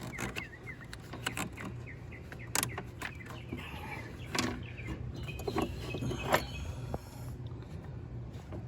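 Scattered light clicks and knocks of a car battery hold-down part being handled and fitted at the battery tray, over a steady low hum. A few short bird chirps sound near the start.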